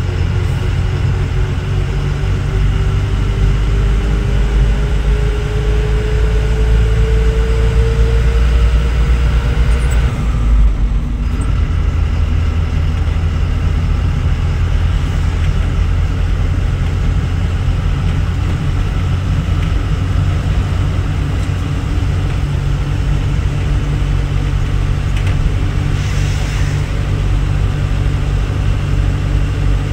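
Diesel truck engine and road noise heard from inside the cab while cruising on the highway. A thin tone climbs slowly for about ten seconds, then the sound changes abruptly and runs on steadily.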